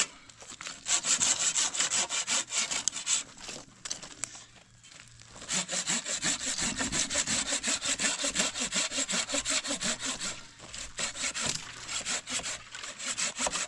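Hand saw cutting through a thick tree branch in quick back-and-forth strokes, pausing briefly about four seconds in before sawing on steadily.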